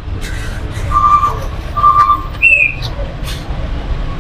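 Whistling: two short notes at the same pitch about a second apart, then a brief higher note that falls, over a steady low rumble of traffic.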